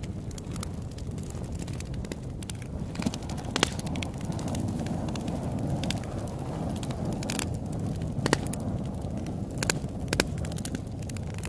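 Campfire crackling, with sharp wood pops every second or so, the loudest a few seconds in and again near the end. They sit over a low, steady wash of ocean waves.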